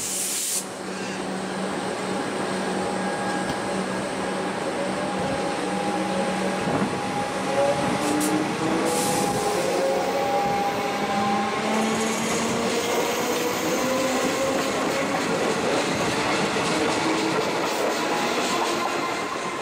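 Comeng electric suburban train pulling away, its traction motors whining in several tones that rise slowly in pitch as it gathers speed, over the rolling noise of its wheels on the rails.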